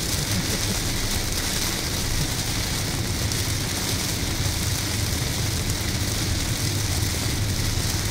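Car driving through heavy rain, heard from inside the cabin: a steady low engine and tyre rumble under the constant hiss of rain on the car and the wet road.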